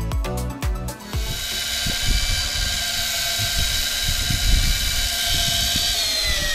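Music for about the first second, then an electric fishing reel's motor winding in line with a fish on: a steady whine of several tones over a hiss, with dull knocks underneath. Near the end the whine drops in pitch.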